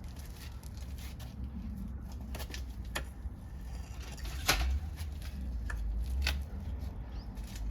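Wood fire crackling in a pail-can wood-gas stove as it burns old wooden furniture: sharp, irregular pops, the loudest about four and a half seconds in, over a low steady rumble.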